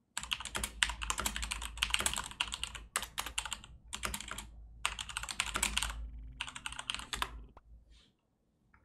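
Typing on a computer keyboard: fast runs of keystrokes in several bursts with brief pauses between, stopping near the end.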